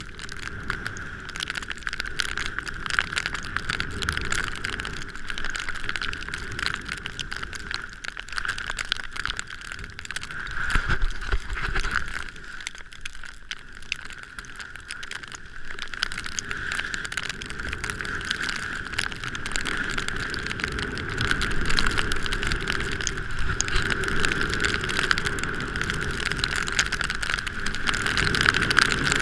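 A vehicle driving on a snowy road, with steady running noise and a constant fine rattling crackle. It eases off for a few seconds about halfway through, then picks up again.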